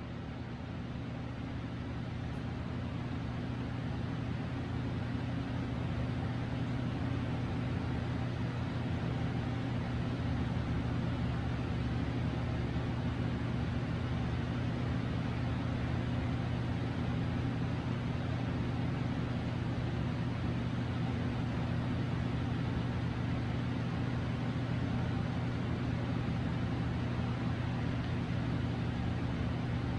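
Steady low mechanical hum over an even hiss, rising slightly in level over the first few seconds and then holding constant.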